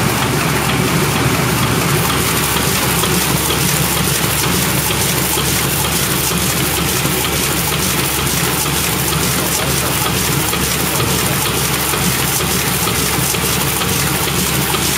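Heidelberg Quickmaster DI Plus four-colour offset litho press running: a steady, loud mechanical rush with fine, rapid ticking as sheets feed through and land in the delivery.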